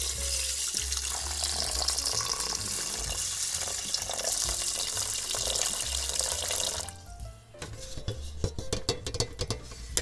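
Water pouring in a thin stream into a rice cooker's inner pot onto raw rice, running steadily for about seven seconds and then stopping. A few light knocks and clicks follow near the end as the pot is handled.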